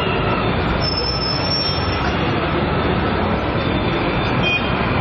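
Loud, steady din of a large crowd, with a brief high tone about a second in.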